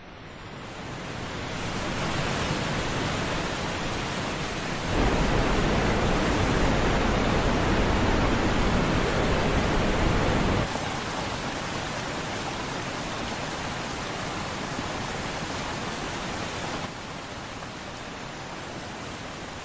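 Waterfall pouring, a steady rush of noise. It fades in over the first couple of seconds, grows louder about a quarter of the way in, drops back about halfway through, and drops a little again near the end.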